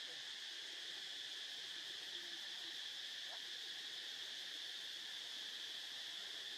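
Steady insect chorus: an unbroken high-pitched drone that does not rise or fall.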